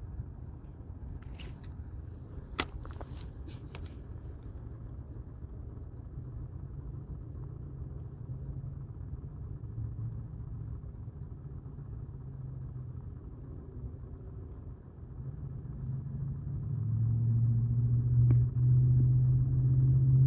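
A low engine rumble, steady at first and then growing louder from about fifteen seconds in. A few sharp clicks come in the first few seconds.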